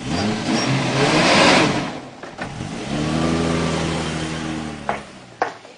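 Toyota Land Cruiser pickup engine revving as the truck pulls away, with a loud rushing noise in the first two seconds. It then runs steadily in gear and fades out near the end.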